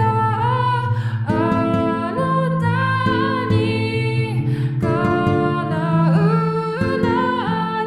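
Song music: a gliding, wavering lead melody carried over plucked-string chords and a bass line.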